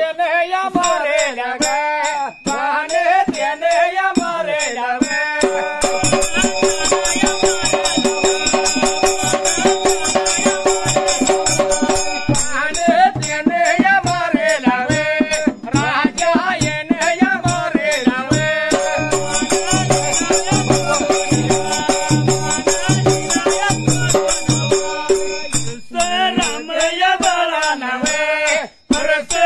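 Dhangari ovi music: men's voices sing for the first few seconds. Then hand cymbals (tal) clash rapidly and continuously over long held notes, with a dhol beating about twice a second. The singing returns near the end.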